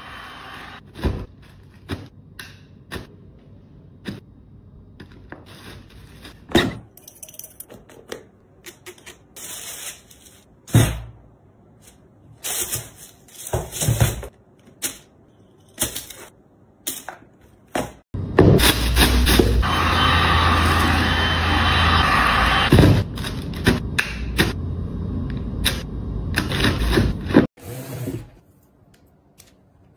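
Packing sneakers by hand: plastic wrap and tissue paper rustling and crinkling, and cardboard shoebox lids and flaps knocking and sliding, heard as many short separate sounds. In the second half a loud steady noise with a low hum runs for about nine seconds, then stops suddenly.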